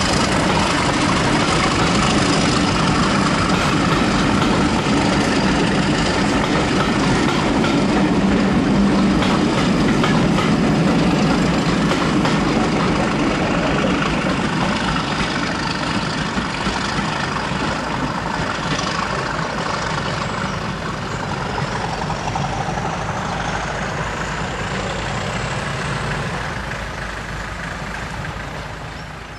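English Electric Class 37 diesel locomotive's V12 engine working under load as it hauls a train of coaches away, loud and steady at first, then fading slowly over the second half as it draws off. A faint high whine rises about three-quarters of the way through.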